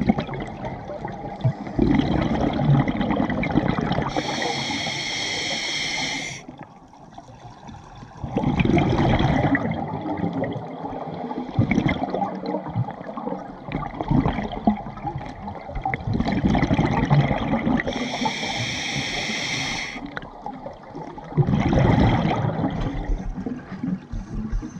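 Scuba diver breathing through a regulator underwater: bubbly, gurgling rushes of exhaled air repeat every few seconds, and twice a high hiss of about two seconds marks an inhalation through the regulator.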